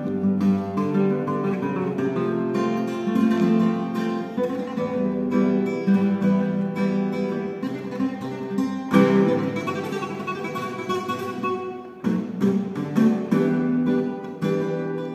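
Solo classical guitar played live, a run of plucked notes and chords, with one chord struck hard about nine seconds in.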